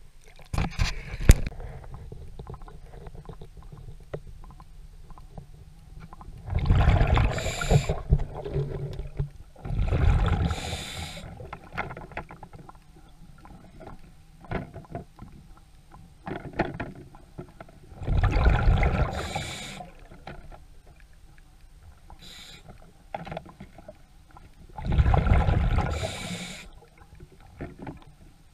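Water sloshing and rushing against a camera held at and under the water's surface: four separate rushes of a second or two each, with a few sharp knocks about a second in.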